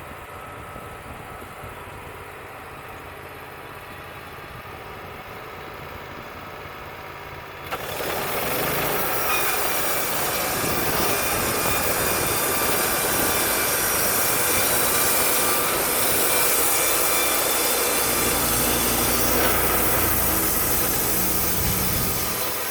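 Wood-Mizer LT35 band sawmill running steadily at first, then about eight seconds in the band blade cuts into a poplar log with a loud, hissing sawing sound that carries on until it starts easing off near the end.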